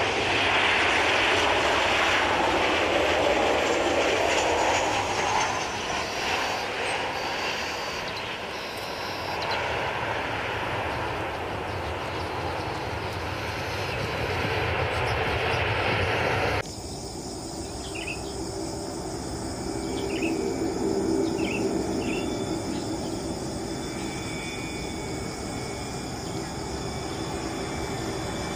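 Boeing 737-800 CFM56 jet engines on landing, loud at first, easing after about eight seconds as it rolls out. About two-thirds through, the sound cuts abruptly to a steadier, lower jet rumble with high steady tones and a few short chirps over it.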